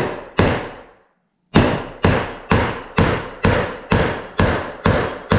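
A 16-ounce claw hammer striking a bearing punch tool, driving a worn 44 mm wheel bearing out of a Polaris RZR's bearing carrier. Two strikes, a pause of about a second, then a steady run of strikes about two a second, each ringing briefly.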